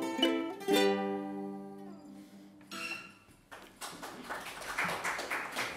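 Acoustic guitar and ukulele playing the last notes of a song and ending on a chord that rings out for about two seconds, with one more short strum near three seconds in. From about three and a half seconds in, a small audience applauds.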